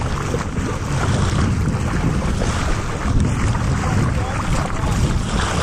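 Steady wind buffeting the microphone, with choppy sea water sloshing around the kayak.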